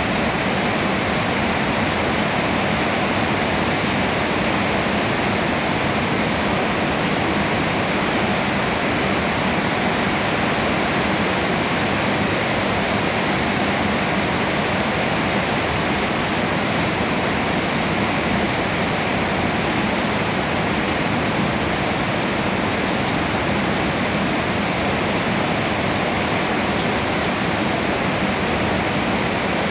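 Steady rain falling on leafy trees: an even, unbroken hiss.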